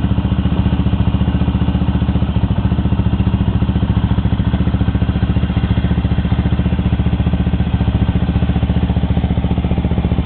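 Herald 400 cafe racer's air-cooled, Honda-derived engine idling steadily, an even beat of exhaust pulses with no revving.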